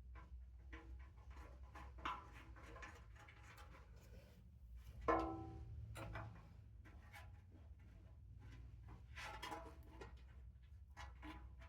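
Light metallic clinks and knocks of hand tools, bolts and motorcycle parts being handled and fitted, irregularly spaced, with one sharper ringing clink about five seconds in, over a steady low hum.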